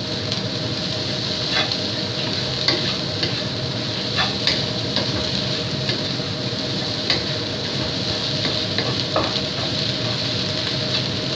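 Fried rice sizzling in a wok over a high flame while a wooden spatula stirs, scrapes and tosses it, with scattered light knocks of the spatula against the pan.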